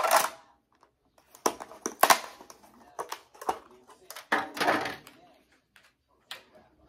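Thin clear plastic sushi takeout container being opened and handled: the lid crinkles and snaps in several short bursts with pauses between.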